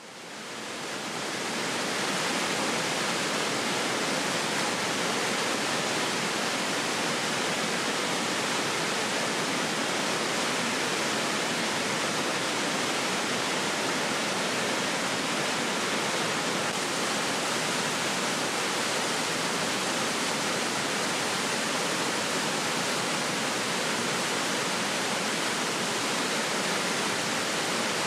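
Large waterfall pouring: a steady, dense rush of falling water that fades in over the first couple of seconds and then holds even.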